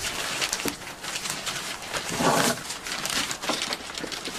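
A plastic bag rustling and crinkling as it is pulled down from overhead rafters, with scrapes and small knocks. A brief pitched sound, like a creak or a grunt, comes about two seconds in.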